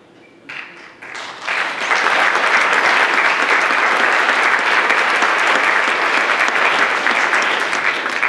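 Audience applauding in a theatre: a few first claps swell into full, steady applause that starts to die away near the end.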